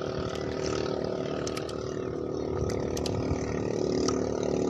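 Small boat engine running steadily at an even pace, with scattered light clicks and knocks.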